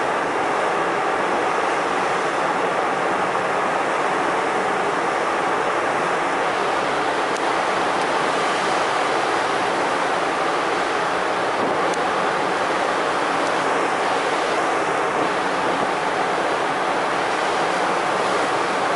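Steady rushing of wind and sea water, an even, unbroken noise with no distinct waves breaking.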